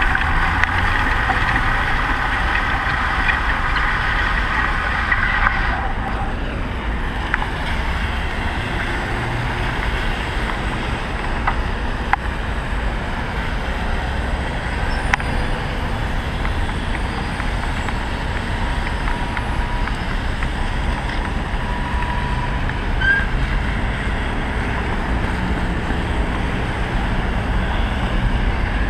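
Wind rumble on a bicycle-mounted camera's microphone while riding in city traffic, with the sound of passing vehicles. A steady hum of several pitches runs for the first five seconds or so, then stops.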